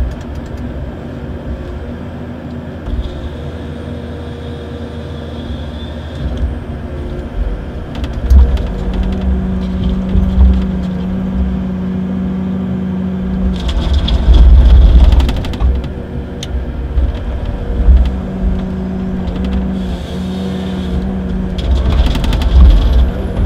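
Komatsu forestry harvester working a felled conifer, heard from inside the cab: the engine and hydraulics run steadily, with a hum that strengthens as the head's feed rollers drive the stem through the delimbing knives. The head's chain saw cuts through the log twice, about two-thirds of the way in and again near the end.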